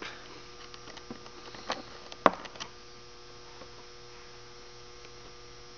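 Steady electrical hum, with a few sharp clicks in the first three seconds from the rollers and cable of a hoof boot being handled while a roller is worked into line; the loudest click comes a little over two seconds in.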